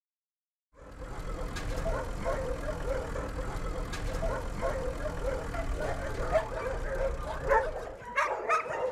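Dogs barking repeatedly over the low, steady rumble of a vehicle, heard from inside its cabin. Near the end the rumble drops away and the barking becomes louder and closer.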